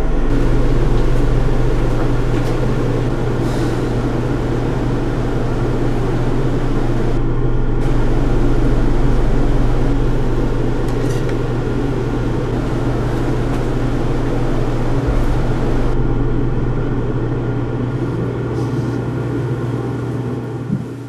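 A steady, loud low droning hum under a dense rushing noise, like a machine or ventilation drone, cutting off abruptly at the very end.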